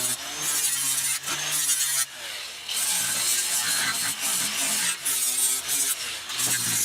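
Angle grinder with a 40-grit flap disc grinding down welds on sheet-metal wheel tubs. The grinding noise is steady, dropping off briefly a few times.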